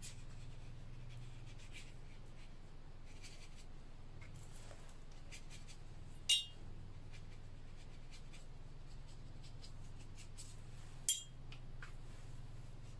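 Faint scratchy strokes of a watercolour brush on paper, over a steady low hum. Two short, sharp clicks about six and eleven seconds in are the loudest sounds.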